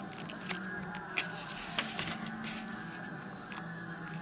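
Moleskine sketchbook pages being handled by hand: a few sharp paper ticks and a short rustle as a page is turned, over a steady low hum.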